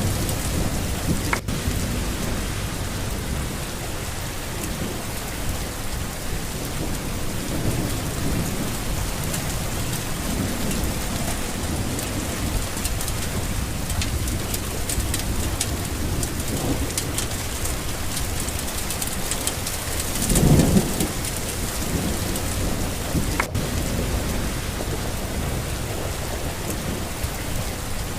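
Steady rain falling, with low rumbles of thunder rolling in now and then; the loudest roll comes about twenty seconds in.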